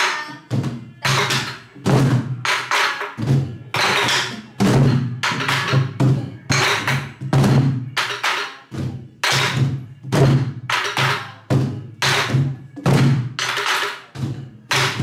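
Several Korean buk barrel drums played together in a pansori accompaniment rhythm: sticks striking the drumheads and wooden shells with deep booms and sharp wooden knocks, roughly two strokes a second in an uneven pattern.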